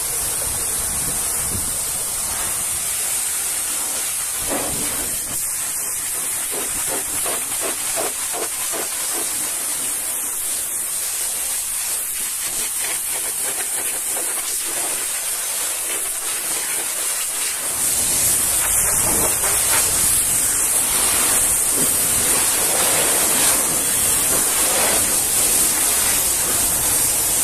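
High-pressure washer jet hissing steadily as it sprays a truck's wheel and cab. It gets louder about two-thirds of the way in.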